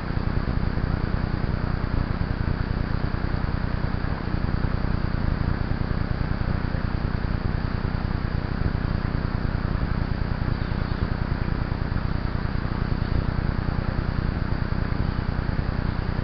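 Steady low rumble of wind buffeting a camera microphone on a moving mountain bike, with a rapidly flickering level and no clear pitch.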